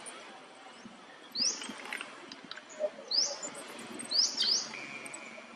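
Bird chirping: four short, quick upward-sweeping chirps over a faint outdoor background, followed by a brief steady high note near the end.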